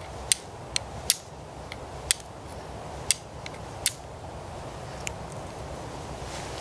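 Carbon steel striker struck against flint, giving about eight sharp clicks spaced irregularly half a second to a second apart, with the last near five seconds in. Each strike is meant to throw a spark onto char cloth held on top of the flint.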